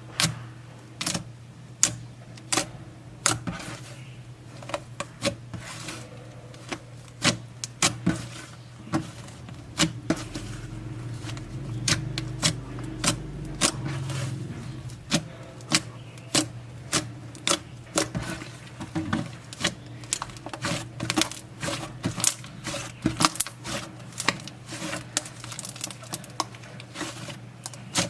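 A series of sharp, irregular clicks, about one or two a second, over a steady low hum.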